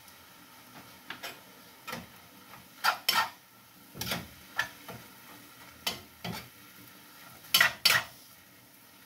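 A metal spoon scraping and clinking against a frying pan as chopped collard greens are stirred. The knocks are irregular, about one to two a second, and the loudest pairs come about three seconds in and near the end.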